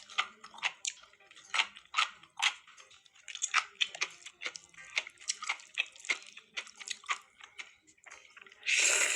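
Close-miked eating: a run of short, wet chewing and mouth clicks at an irregular pace, with one louder half-second burst near the end.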